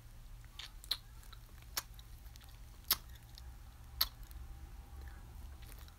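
Quiet room with a low steady hum and a handful of soft isolated clicks, roughly one a second.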